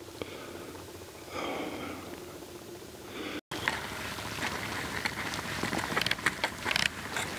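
Footsteps crunching on loose volcanic scree, a dense run of gritty clicks and scrapes, with a brief break in the sound about halfway through.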